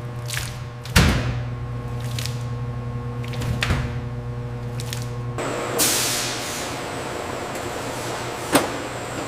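Factory machinery running with a steady hum, with sharp mechanical knocks and clicks. A little past halfway the sound changes abruptly, and a hiss like released air or spray rises and fades, followed by one more click near the end.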